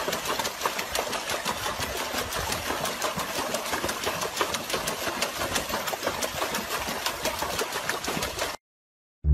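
Dog splashing in a plastic tub of water, pawing it rapidly with its front legs: a dense, steady run of quick splashes that cuts off suddenly near the end.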